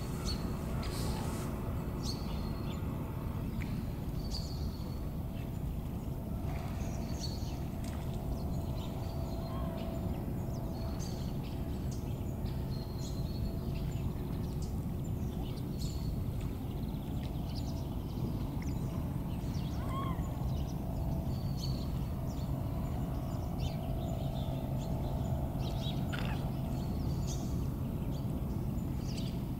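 Outdoor dawn ambience: a steady low rumble with birds chirping now and then in short high calls.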